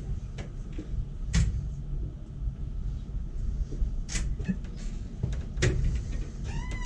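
A few sharp clicks, about one to three seconds apart. Near the end comes a cat's meow, one call that rises and falls.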